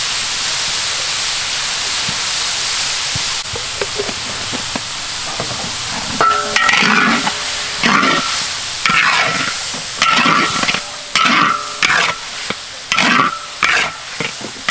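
Diced carrots and green beans sizzling in a large metal wok. From about six seconds in, a metal spatula scrapes and knocks against the wok about once a second as the vegetables are stir-fried, each stroke with a short metallic ring.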